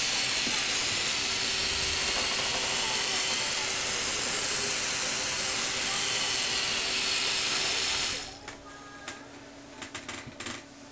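Motor-driven Lego Technic plastic gearbox running with a steady whirring of spinning gears. It stops suddenly about eight seconds in, and a few light clicks follow.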